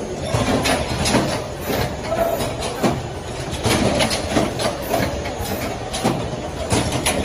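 BFS strip sticker labeling machine running: a steady mechanical clatter from its strip feeder and conveyor, with frequent irregular clicks and clacks.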